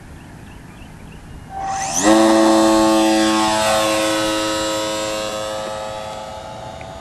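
Radio-controlled model Cub airplane's motor and propeller throttling up for takeoff about a second and a half in. The pitch rises quickly to a steady high whine, which then slowly fades as the plane climbs away.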